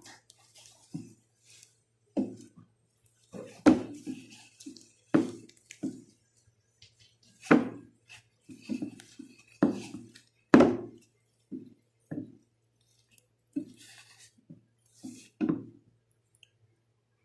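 Soft, sticky milk-powder dough for gulab jamun being mixed and kneaded by hand in a bowl: irregular squishes and soft thuds about once a second, a few with a sharper clack against the bowl. The dough is still sticking to the hands.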